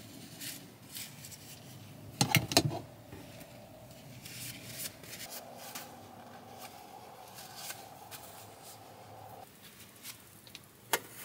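Small kitchen utensils being handled and dried with a paper towel: light rubbing and scattered clicks, with a sharp cluster of clacks about two seconds in and another single click near the end.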